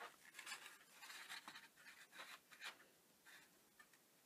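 Faint rustling and light scrapes of a ruler and card being handled and laid against each other on a craft mat, dying away after about three seconds.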